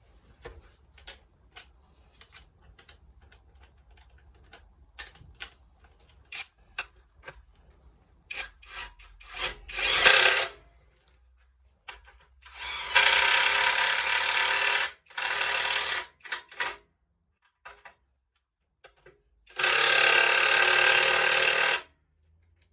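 Metal clicks and taps of parts and bolts being handled, then a power driver with a socket spinning bolts in. It runs in several bursts of one to two and a half seconds, with the bolts run in but not yet torqued.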